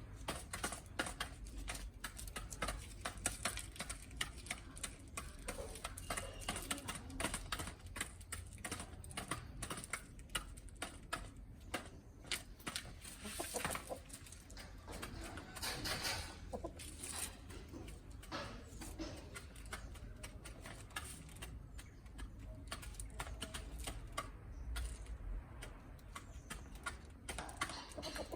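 Backyard chickens pecking at feed: a rapid, irregular patter of small clicks, with a few soft clucks.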